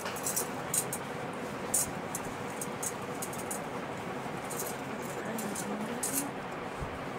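A few light metallic clinks, as of gold bangles and rings knocking together while hands handle a cloth wrap, scattered through a steady background hiss.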